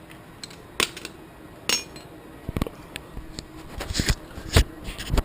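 Irregular metal clinks and knocks as a pedal is worked off a RadRover fat bike's crank arm whose threads are stripped: about a dozen sharp taps, thickest and loudest in the last two seconds.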